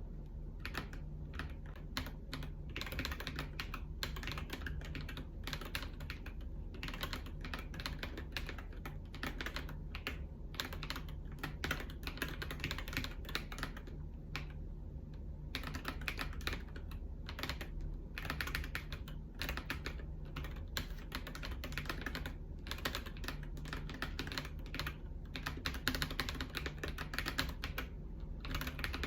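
Fast typing on a mechanical keyboard fitted with Akko V3 Cream Yellow Pro linear switches, a rapid run of keystroke clacks with a few brief pauses.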